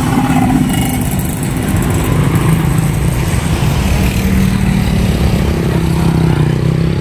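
Small motorcycle engines running as motorcycles pass close by on the road, among steady street traffic.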